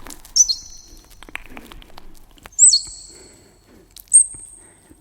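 Three short, very high bird-like whistled calls, about two seconds apart. Each starts with a sharp sliding note and then holds and rings out; the third is the highest and steadiest.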